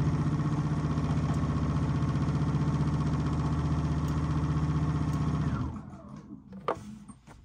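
Husqvarna Viking Platinum 755 Royal Edition sewing machine running at a steady speed under foot-pedal control, stitching through a placemat with an even, rapid needle rhythm. It stops about five and a half seconds in, followed by a single click.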